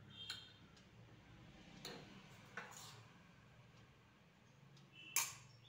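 Several faint clinks and taps of a steel spoon and a steel plate against a glass jar as chilli-powder mix is spooned and tipped in, the loudest clink about five seconds in.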